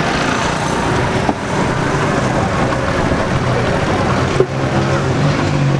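Busy street ambience: a crowd talking with a motor vehicle running, and a low steady engine hum becoming more prominent near the end.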